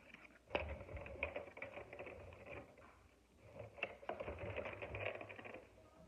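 Small handling noises from plastic toy game pieces and sticker sheets: light rustling with a few sharp clicks or taps, one about half a second in and two close together around four seconds in.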